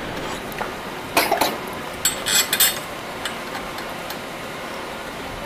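A few light metallic clinks and scrapes from a crash guard's mounting bolts and bracket being handled and fitted, over a steady background hiss. The clinks come about a second in and again around two seconds in.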